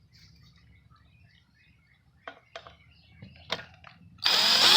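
A few faint clicks of handling, then near the end a battery-operated drill starts spinning loudly and steadily, backing out the outlet's screws.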